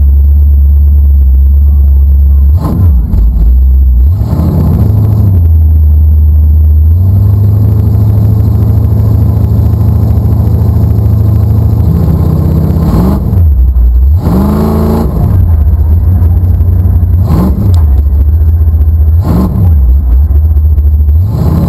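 1979 Chevy 1500's 327 small-block V8 running loudly at idle and low speed, blipped up into short revs about seven times: twice a few seconds in, the rest in the second half.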